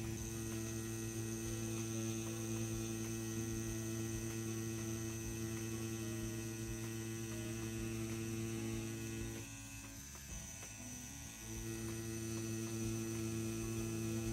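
CNC P6 rotary tattoo pen running at a low 8 volts while lining, a steady electric hum that dips briefly about ten seconds in.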